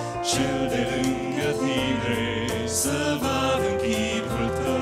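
Male vocal quartet singing a held, changing harmony without clear words, between lines of a hymn.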